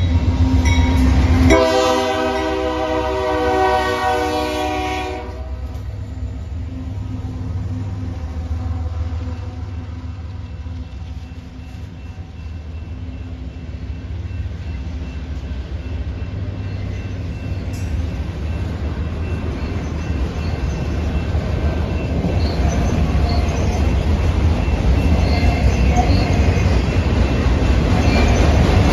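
Diesel freight locomotives rumbling past close by. About a second and a half in, an air horn sounds one chord for about four seconds. Then autorack freight cars roll by with steady wheel-on-rail noise that grows louder, with light wheel squeal near the end.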